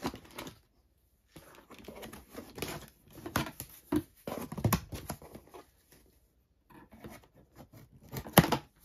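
Cardboard box flaps and inner packaging being pulled and handled: irregular rustling and scraping of cardboard, with a sharp click near the end.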